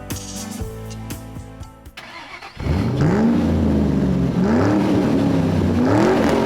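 Background music ends about two seconds in. Then a car engine comes in loud and is revved up and back down three times.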